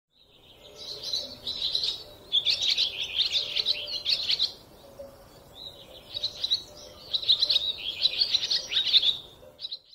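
Songbirds singing: bursts of rapid, high chirping and twittering, with short lulls between phrases about two and five seconds in.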